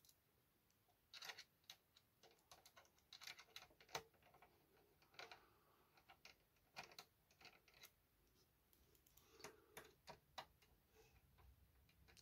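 Faint, irregular clicks and ticks of a screwdriver undoing the screws that hold the tape mechanism in a cassette deck's chassis.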